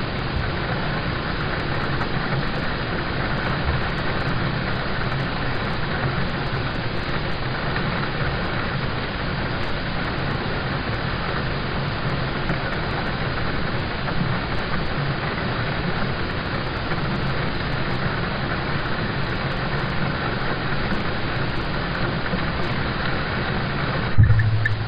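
Steady rain on a car, heard from inside the cabin, with a low steady rumble underneath. A brief loud low thump near the end.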